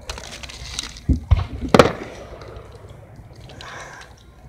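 Aerial fireworks going off: three sharp bangs in quick succession a little over a second in, the last the loudest, then a quieter stretch.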